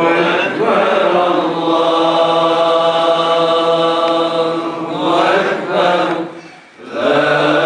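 A man's voice chanting an Islamic devotional melody, holding long, ornamented notes, with a short break for breath about six and a half seconds in.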